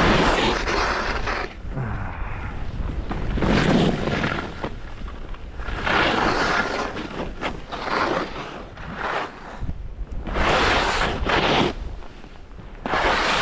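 Skis scraping and hissing over rough, chopped-up snow, surging with each turn, with wind buffeting the microphone.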